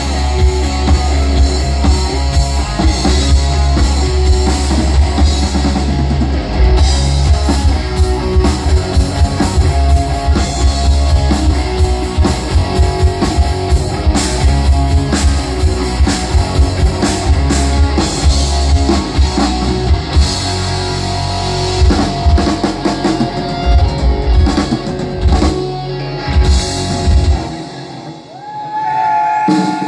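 Live rock band playing loud with two electric guitars, bass guitar and drum kit. About two seconds before the end the drums and bass stop, leaving one held guitar note ringing.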